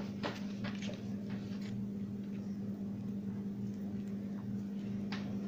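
A spatula spreading thick melted chocolate glaze over pancakes: a few soft scrapes and smears, mostly in the first two seconds and once more near the end, over a steady low hum.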